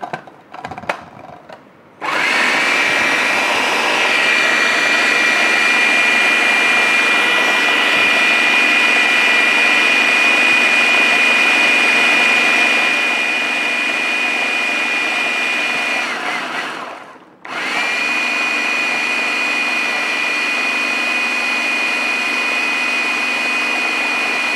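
An AEX electric food chopper runs with a steady high whine, grinding cooked meat korma and lentils into a haleem paste. It starts about two seconds in after a few light clinks, is switched off briefly about two-thirds of the way through, and is started again.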